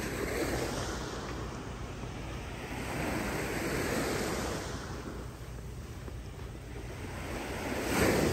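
Gulf of Mexico surf washing onto the beach, rising and falling in swells, with wind buffeting the phone's microphone. A short, louder rush comes near the end.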